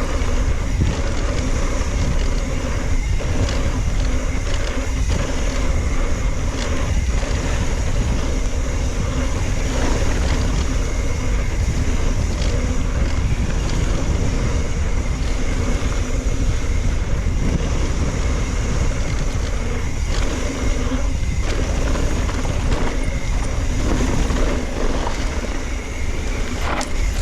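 Strong wind buffeting the camera microphone while a mountain bike rolls fast over a dirt trail, with steady tyre noise and short knocks and rattles over bumps.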